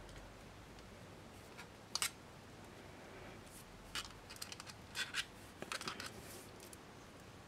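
Small sharp clicks of jewellery pliers handling wire and a hanging beaded chain while a wrapped loop is being started: one click about two seconds in, then a scattered cluster of clicks in the second half.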